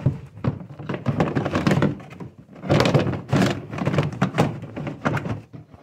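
Plastic buckets and containers being pushed and stacked into a tub, knocking against each other in a continuous run of irregular thunks and clatters.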